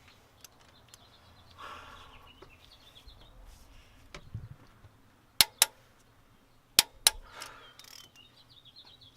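Click-type torque wrench breaking over as camshaft bolts reach torque: two pairs of sharp metallic clicks, about a second and a half apart, with softer ratcheting between.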